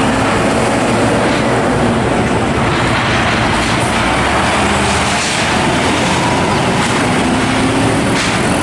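Hino SG260Ti fuel tanker truck's diesel engine running as it drives along the road, mixed with tyre and traffic noise; a loud, steady wash of sound.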